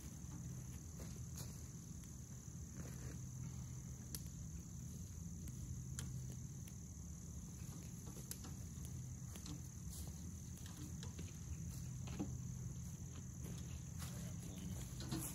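Steady chorus of crickets, a high even trill, with scattered faint clicks and ticks over it.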